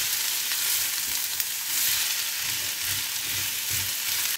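Potatoes and onion sizzling as they fry in a frying pan, with a spatula stirring them in soft, repeated strokes.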